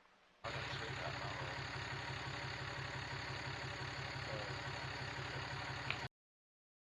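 An engine running steadily at idle with a fast, even low pulse. It starts suddenly about half a second in and cuts off suddenly near the end.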